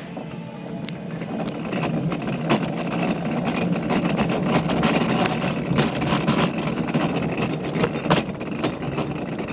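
Luge cart's wheels rolling and rattling on a concrete track, getting louder as it picks up speed, with frequent small knocks and clatters.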